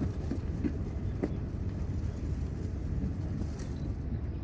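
Steady low rumble of outdoor background noise, with two brief faint pitched sounds about a second in.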